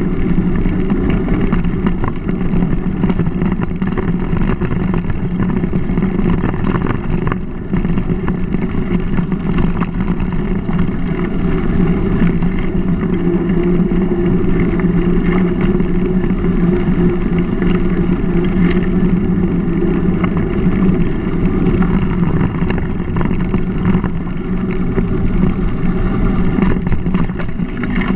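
Steady low rushing noise of wind over a GoPro microphone and mountain-bike tyres rolling on a dirt-and-gravel towpath while riding.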